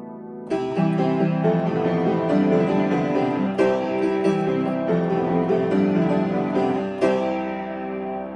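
Upright piano played: a held chord dies away, then about half a second in a new passage of chords and a busy melody begins, closing on a loud chord about seven seconds in that is left to ring.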